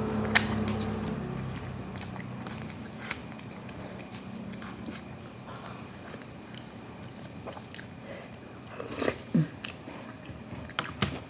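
Close-up eating sounds: chewing and biting into instant noodles with vegetables, with scattered wet mouth clicks and a louder cluster of them about nine seconds in.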